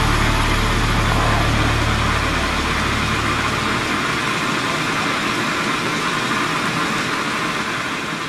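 Hot-spring geyser spouting steam and water from an ice-crusted vent: a steady rushing hiss.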